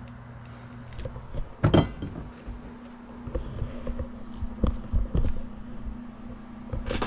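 Handling sounds as an RC kit is unpacked: a cardboard kit box set down with a knock about two seconds in, then scattered light clicks and rustles from the bagged plastic parts, over a steady low hum.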